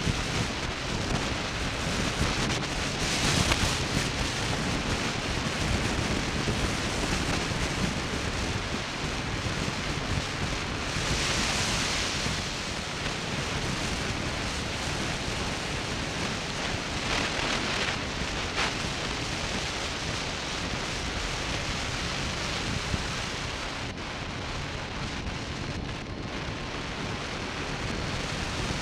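Wind rushing over an action camera's microphone on a moving motorcycle: a steady noisy rush with no clear engine note. The hiss swells briefly about three, eleven and seventeen seconds in.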